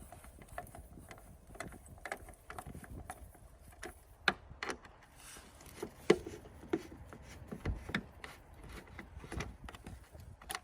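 Irregular light clicks and taps of a hand tool working: a Torx T15 bit on an extension turned by hand to back out a tail light mounting screw. The sharpest clicks come about four and six seconds in.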